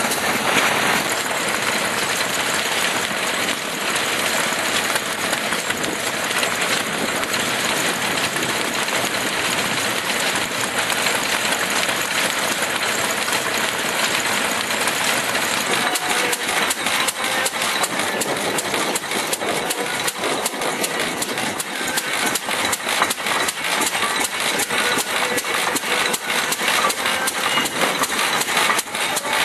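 Vintage stationary engines running steadily, with a fast, regular knocking beat that becomes plainer about halfway through.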